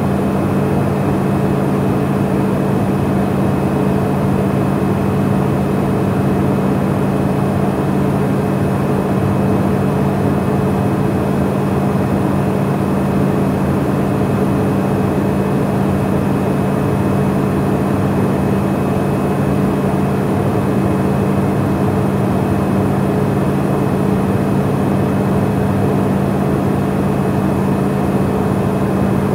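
Turboprop engine and propeller noise in the cockpit during cruise flight. A steady drone with several held hum tones over a constant rush of airflow, unchanging throughout.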